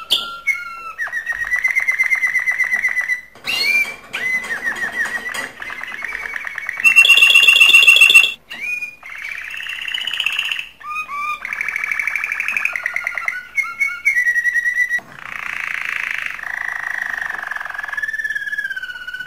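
Male domestic canary singing its breeding song, a long, varied run of fast trills and whistled gliding notes. The loudest phrase comes about seven seconds in, and there are a few brief pauses between phrases.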